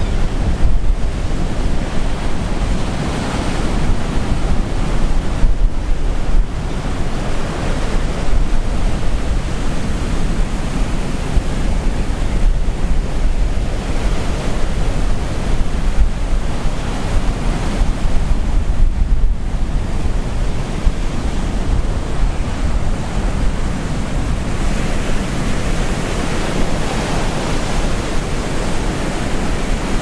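Rough Atlantic surf: waves breaking and foaming onto the beach in a continuous, rising and falling wash. Wind buffets the microphone with a steady low rumble.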